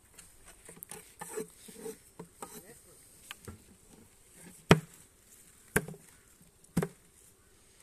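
Wooden beehive box knocked three times, about a second apart, the first the loudest, as it is tipped and tapped out during cleaning. Honey bees buzz faintly in the background.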